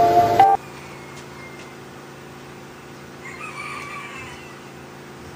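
Background music cuts off abruptly about half a second in. A low steady hum follows, and a rooster crows once, about a second long, falling in pitch, a little after the three-second mark.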